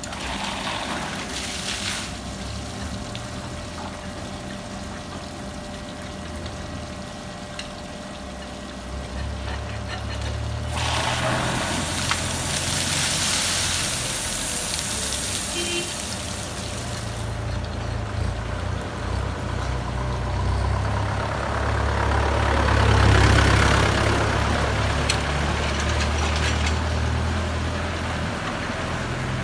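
Water jet hissing as it is forced through a locomotive radiator core during flushing, in two spells, the first about a third of the way in and the second about two-thirds of the way in. A steady low engine-like rumble runs underneath.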